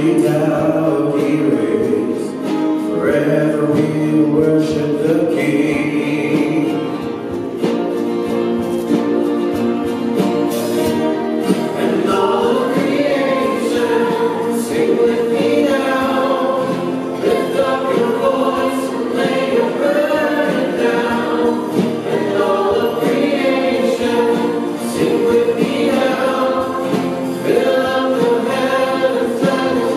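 A small mixed church choir singing a Christian worship song with instrumental accompaniment.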